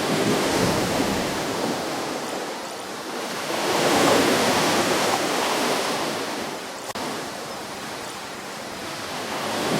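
Ocean waves breaking and washing up a shore, rushing in slow surges that swell and fade. The biggest surge peaks about four seconds in, and a new wave starts rising near the end.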